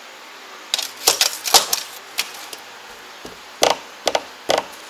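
Irregular sharp clicks and knocks of hard material being handled and tapped: a quick rattling cluster about a second in, then three louder single knocks in the second half.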